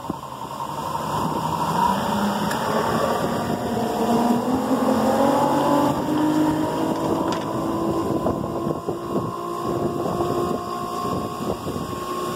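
Outboard motorboat pulling away: its engine speeds up, rising in pitch over the first few seconds, then holds a steady note as it cruises off, slowly fading.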